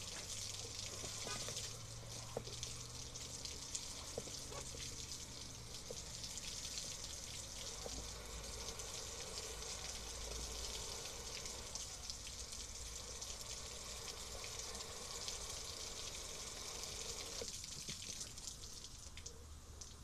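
Garden hose with a pointed spray nozzle jetting water into a Cuisinart drip coffee maker to flush it out: a steady spray of water that lessens about 17 seconds in.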